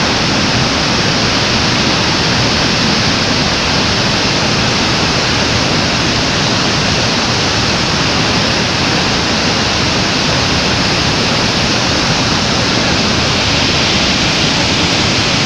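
Iguazú Falls, water pouring down in a loud, steady rush.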